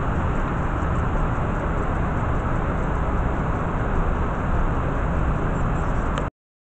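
Steady rush of water pouring down a man-made waterfall, cutting off abruptly about six seconds in.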